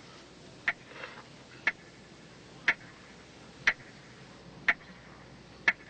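Quiz-show clock ticking once a second, six sharp ticks, counting down the time left to answer.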